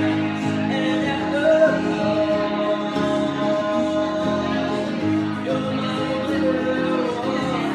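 Live band music: a man singing with long held notes over an electric guitar and a strummed guitar.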